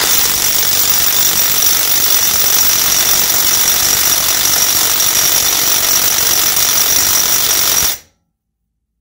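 Avid Power 20V cordless half-inch impact wrench hammering continuously at full trigger against a torque-test rig, a rapid hammering with a steady high whine over it. It stops abruptly about eight seconds in.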